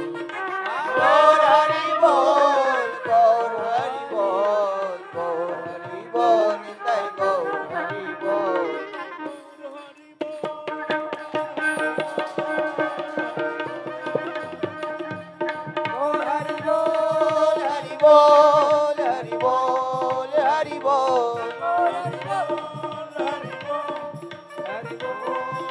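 Devotional kirtan music: hand drums play a busy rhythm under a gliding melodic line, with no sung words. The music dips briefly about ten seconds in, then carries on.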